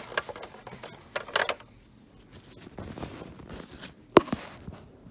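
Handling noises from a vacuum cleaner being opened to show its dirt: rustling with a few light clicks, and one sharp click about four seconds in.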